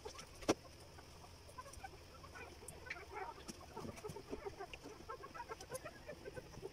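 Chickens clucking, a run of many short calls that grows busier after the first few seconds. A single sharp knock sounds about half a second in.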